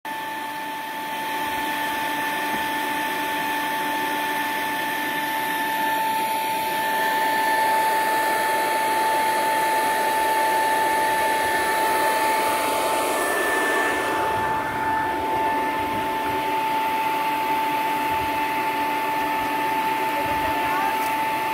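Electric fan running steadily: a constant whine over the rush of moving air.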